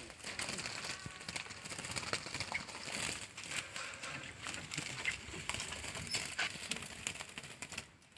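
Asian glossy starlings fluttering and scrabbling as they are handled, a run of scattered rustles and light clicks with a few faint short chirps.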